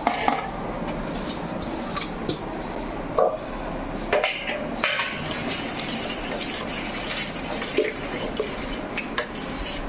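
A long-handled metal ladle stirring chopped fruit into thick custard in a large stainless steel pot, with wet sloshing and scraping and several sharp metal clinks against the pot, the loudest in the first second and around three to five seconds in.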